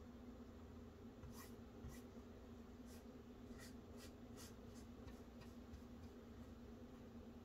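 Faint, short swishes of a flat paintbrush stroking acrylic paint onto canvas, about a dozen irregular strokes between about one and six and a half seconds in, over a low steady hum.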